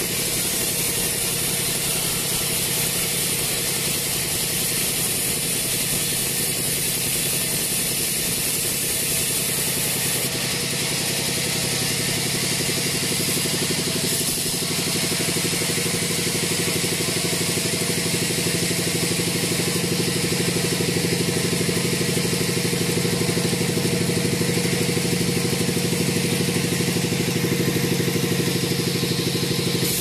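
Sawmill bandsaw running steadily, its blade cutting lengthwise through a teak log: a steady machine drone with a high hiss of the cut over it.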